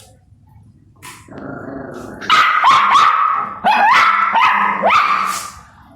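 A puppy growling, then breaking into a rapid run of sharp, high-pitched barks: an angry puppy guarding its food from another puppy. The growl starts about a second in, and the barks come over the following three seconds.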